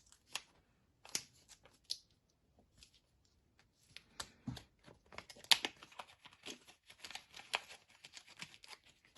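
Small plastic packaging being handled and torn open by hand: irregular crinkling, tearing and small clicks, sparse at first and busier from about halfway through.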